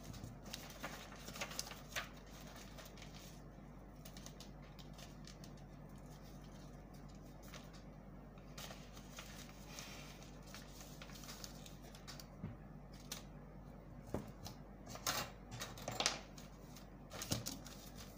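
Paper pattern being handled on a table: scattered short rustles and taps, busiest near the start and again toward the end, over a steady low hum.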